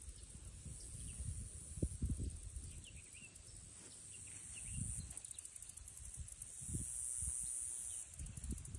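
Rural outdoor ambience: a steady high-pitched insect drone that swells in the middle, a few faint bird chirps, and irregular low thumps and rumble on the microphone.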